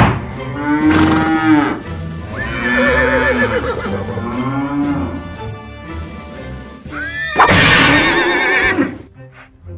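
Cow moos and a horse whinny, likely added as sound effects: a few long, drawn-out calls, with a wavering whinny about seven and a half seconds in. Background music plays underneath.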